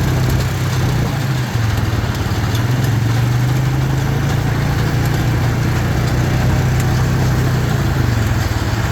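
Farm tractor engine running steadily while it pulls a round baler that picks up and rolls hay.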